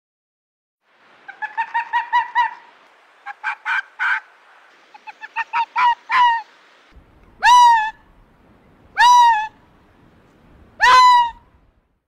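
A series of loud, pitched animal calls: quick runs of short calls, then three longer calls, each about half a second long and spaced about a second and a half apart.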